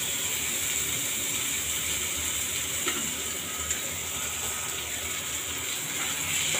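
Sliced onions sizzling steadily as they fry in oil in a pan, with a couple of faint clicks from the spatula about halfway through.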